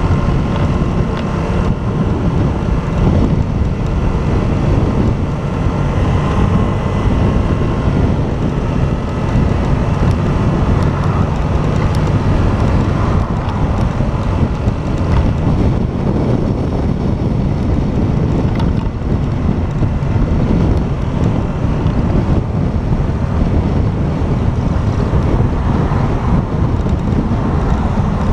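Motorcycle engine running while riding along, with heavy wind noise buffeting the microphone.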